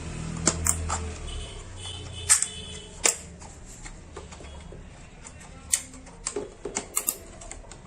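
A series of sharp plastic clicks and taps at irregular intervals: a CPU cooler fan's locking clips being pressed and snapped into the motherboard.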